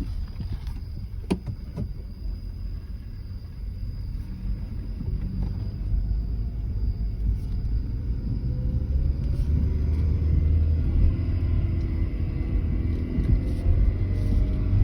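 2013 Hyundai Veloster with an unwanted humming noise: a steady low drone that grows louder partway through, with a faint thin whine joining it about ten seconds in.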